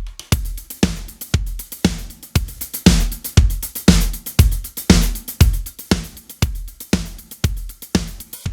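Drum kit loop playing a steady beat of kick, snare and hi-hat, about two hits a second, run through an SSL bus compressor.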